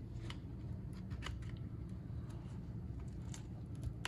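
Faint, scattered clicks and light scrapes of a pry tool working an iPhone 12 Pro Max's screen loose from its frame, over a steady low hum.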